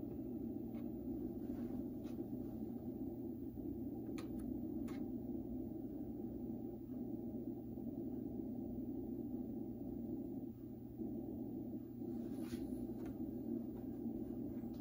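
Steady low hum of room background noise, with a few faint clicks.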